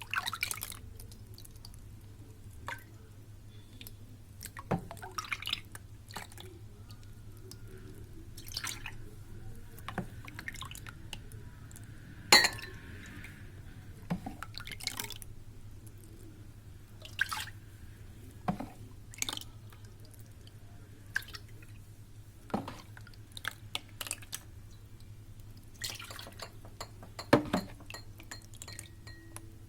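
Liquid jelly mixture being poured into glass cups, with scattered drips and sharp clinks and taps of glass at irregular intervals, the loudest knock about twelve seconds in.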